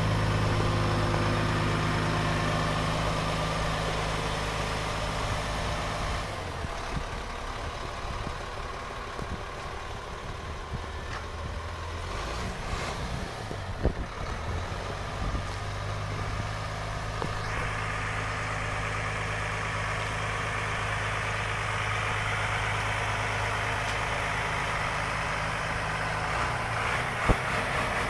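Peterbilt 337's PACCAR PX-8 8.3-litre diesel idling steadily, its level dipping for a while and coming back. Two sharp clicks stand out, one about halfway through and one near the end.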